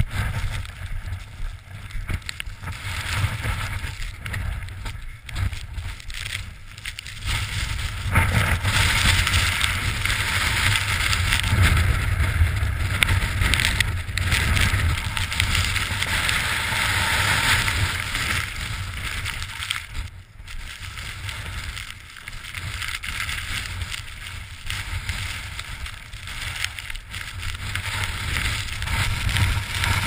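Blizzard wind gusting across a helmet camera's microphone: a low buffeting rush that swells and falls, heaviest for about ten seconds in the middle.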